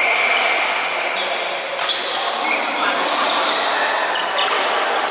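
Badminton rackets striking shuttlecocks, several sharp hits across the several seconds, with short high-pitched squeaks of court shoes on the court floor.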